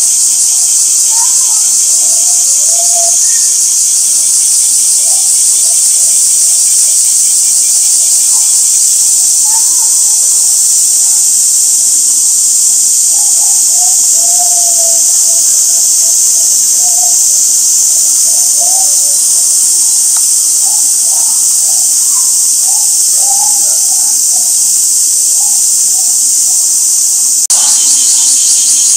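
Loud, steady chorus of summer cicadas, a dense high hiss that does not let up, with faint voices of people in the background.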